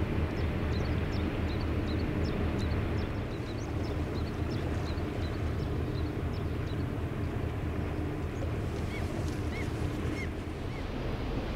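Small birds chirping in quick, high, short notes over a steady low rumble. Near the end come four short arched calls from another bird, spaced about half a second apart.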